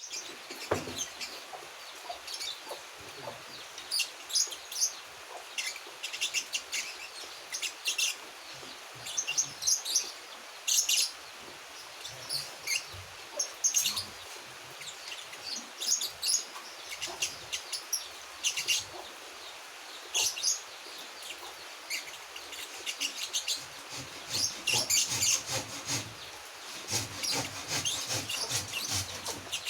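A month-old young songbird practising its song: irregular bursts of short, high chirps and twitters with gaps between them, the unformed warbling of a bird still learning to sing.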